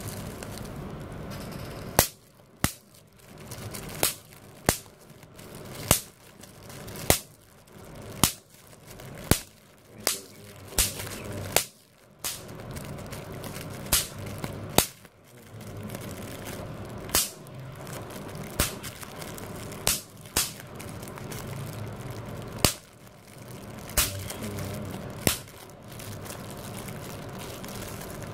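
Plastic bubble wrap being popped by hand: sharp single pops, irregular, about one a second, with the crinkle of the plastic sheet being squeezed between them.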